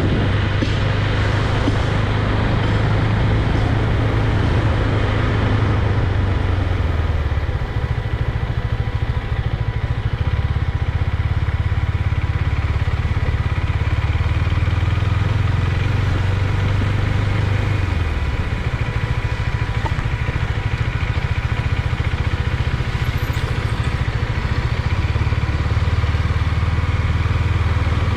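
KTM Duke 390 single-cylinder motorcycle engine running steadily under way, its low note shifting a few times, around 8, 10 and 18 seconds in.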